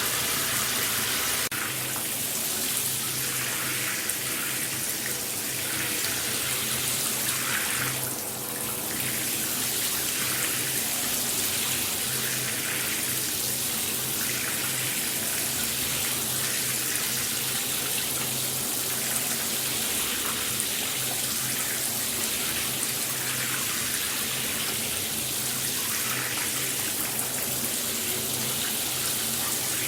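Shower spray running steadily onto a tiled bathroom floor and tub: an even hiss of falling water with a small dip about eight seconds in.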